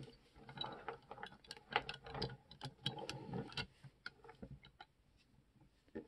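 Metal tracks of a 1:50 scale diecast Cat D11R bulldozer model clicking as it is rolled across a tabletop: a run of quick, uneven ticks that dies away a little before the end.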